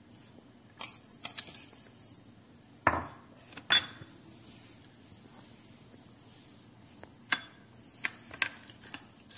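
Steel spoon clinking and scraping against a small glass bowl as sugar is spooned in and stirred: scattered sharp clicks with quiet stretches between, the loudest a little under four seconds in and several more near the end.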